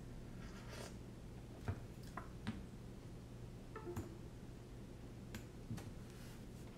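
A few scattered sharp clicks and taps from hands handling a small quadcopter and its wires and connectors, over a faint steady low hum.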